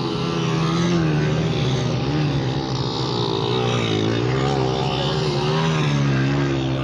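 Small motorcycle engines revving as several bikes ride through loose sand past the camera. The engine notes overlap and rise and fall with the throttle, getting louder as the nearest bike comes close near the end.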